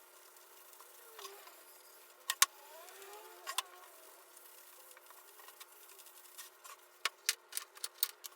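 A few sharp clicks or light knocks: a pair a little over two seconds in, one more about a second later, then a quick run of about six near the end, over a faint hiss.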